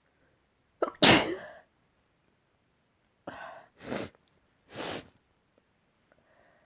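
A person sneezing: one loud, forceful sneeze about a second in, then a quicker run of quieter sneezes between about three and five seconds in.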